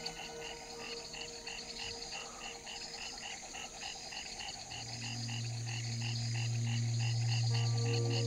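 A night-time chorus of calling animals, pulsing steadily at about three calls a second. About halfway through, a low sustained drone from the film score swells in beneath it.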